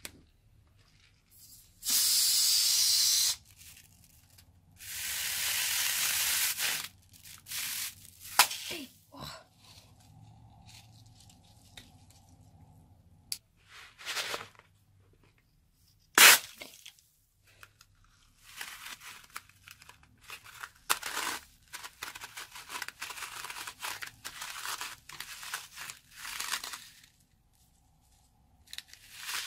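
Balloons snipped open with scissors, with their contents pouring out into a glass bowl in two steady, hissing streams of a second or two each. A few sharp clicks follow. Then fingers work foam beads into slime, making dense crinkling and crackling.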